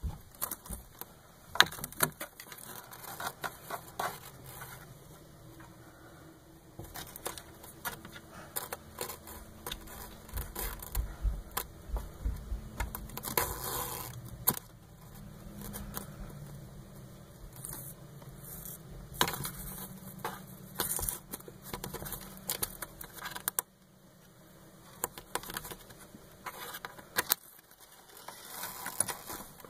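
Irregular clicks, rattles and scrapes of a string cat toy being dragged through a hole in a wooden shelf and snatched at from below, coming in busy flurries with short lulls between.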